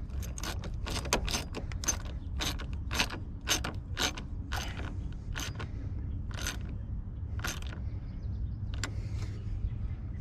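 Hand ratchet and socket clicking as a battery terminal nut is tightened onto the negative post, in an uneven run of about two clicks a second that slows and thins out near the end.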